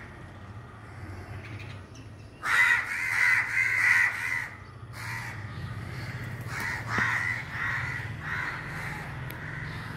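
Crows cawing in repeated calls, loudest in a run about two and a half seconds in and fainter calls through the second half: alarm calls at a cat near their nest. A steady low hum underneath.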